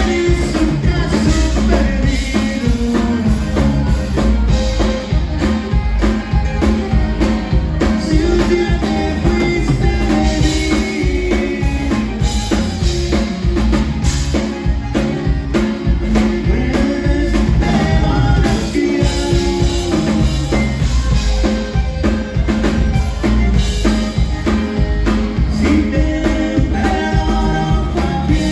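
Live conjunto music played by a band: a button accordion leads over electric bass, acoustic guitar and a drum kit keeping a steady beat.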